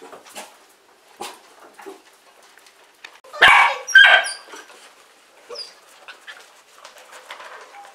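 Puppies at play, one giving two short barks about halfway through, with faint scattered clicks the rest of the time.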